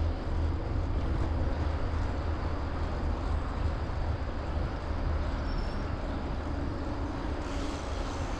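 Wind buffeting the microphone of a moving bicycle, a steady low rumble, with the hiss of the bike rolling along the road.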